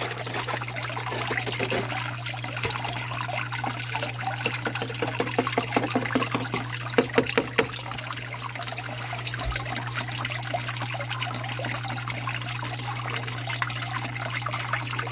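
Water trickling and sloshing in a plastic gold pan as a scoop of sluice tailings is panned, over a steady low hum. A few sharp clicks about halfway through.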